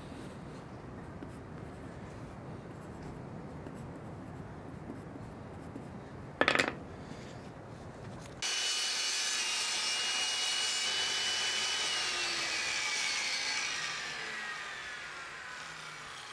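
Pencil rubbing on a wooden cabinet-door frame, with one sharp knock about six seconds in. Then a table saw starts up abruptly with a steady high whine that falls in pitch over the last few seconds as the blade winds down.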